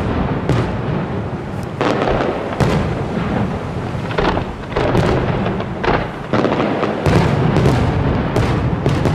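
Aerial fireworks display: shells bursting in quick, irregular succession, a dense run of bangs and booms over a continuous rumble.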